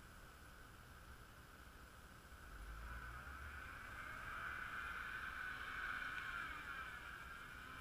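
A distant motor under load, its whine swelling from about two and a half seconds in and sagging in pitch near the end, as a recovery line pulls taut on a Jeep stuck in snow.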